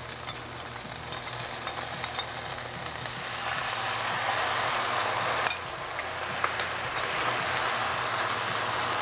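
Chicken and chili peppers sizzling in a hot pan, the hiss growing louder a few seconds in as the Kung Pao sauce is poured over them; one sharp tap about five and a half seconds in.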